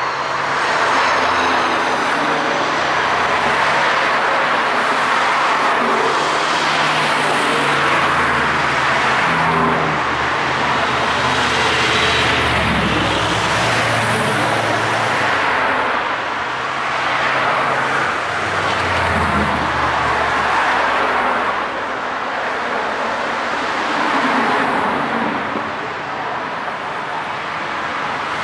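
A steady stream of classic muscle cars driving past one after another, their low engine notes swelling and fading with each pass over continuous tyre and road noise.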